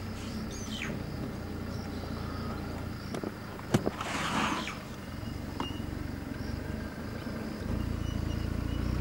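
Idling vehicle engine giving a low steady hum that grows a little louder near the end, with one sharp click just under four seconds in and a short hiss right after it.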